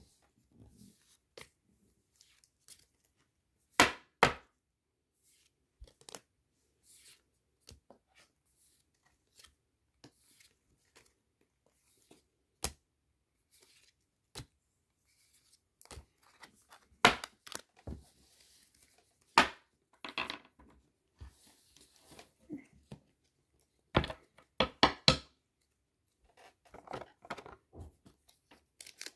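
Pokémon trading cards being handled and sorted: scattered sharp snaps and taps as cards are flicked through and laid down on a playmat, with short bouts of card rustling. The loudest snaps come in a quick cluster near the end.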